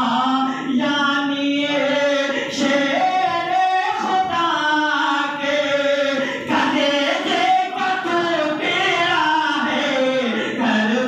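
A man's unaccompanied melodic religious recitation into a microphone, in long held lines with ornamented bends in pitch and short breaks for breath.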